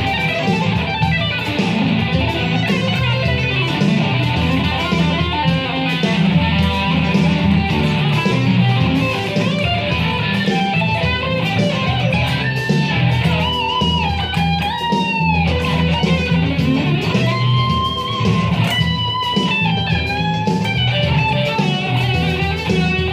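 Electric guitar playing an improvised rock solo of fast runs over a backing of drums and bass, with long held, bent notes about halfway through and again a few seconds later.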